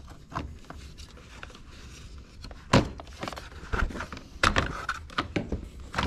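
Hard plastic knocks and clicks as the Can-Am Maverick X3's front grill is handled: a few scattered taps, one sharp knock near the middle, and a quick run of clicks a second and a half later.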